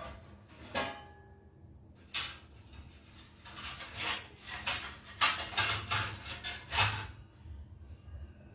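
Kitchen dishes and a lid clattering: a sharp metal clink with a short ring, a knock about two seconds in, then a quick run of clinks and rattles for about three seconds as a lid is put on a dish.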